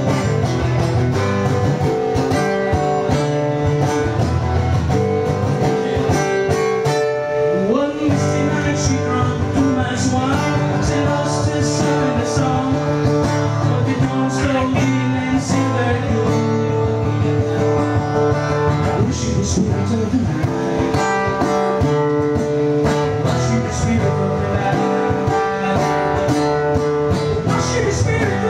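Acoustic guitar strummed and picked steadily in a live song.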